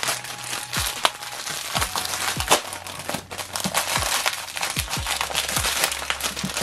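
Plastic and paper packaging crinkling and rustling as a wrapped parcel is handled and opened, over background instrumental music with a steady kick-drum beat.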